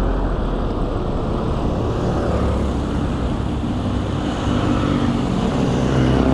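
Steady wind rumble on a bicycle-mounted camera's microphone while riding, mixed with the engines of passing cars and a jeepney; an engine hum grows stronger near the end.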